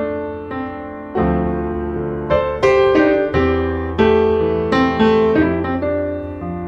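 Background piano music: slow, gentle chords and notes, each struck and left to ring.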